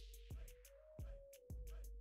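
Quiet background music with a steady beat and a simple melody line over a low bass.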